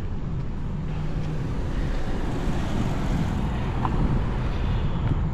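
Street traffic: car engines running past with a steady low rumble.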